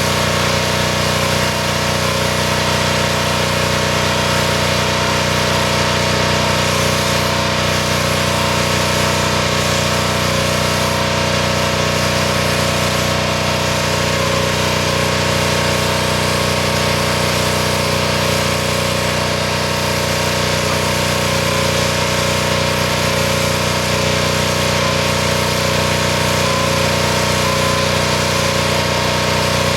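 Pressure washer's engine running steadily at constant speed.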